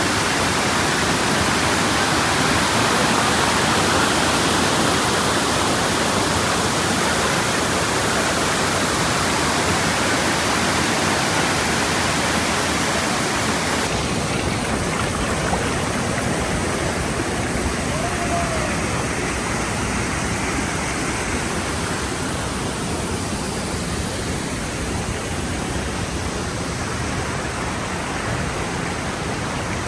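Waterfall: a steady, dense rush of falling water, its tone shifting slightly about halfway through.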